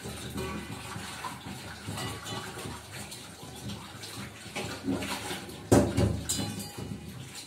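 Tap water running into a kitchen sink while dishes are washed, with small knocks of utensils and one sudden loud clatter a little after halfway.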